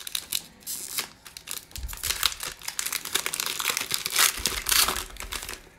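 Foil wrapper of a 2020 Prizm football card pack crinkling and tearing as it is pulled open by hand: a run of dense crackles, loudest about four to five seconds in.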